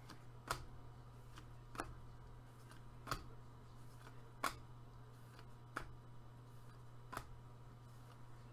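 Gloved hands flipping Upper Deck MVP hockey cards one by one off a stack: a faint, sharp card snap about every 1.3 seconds, six in all, over a steady low hum.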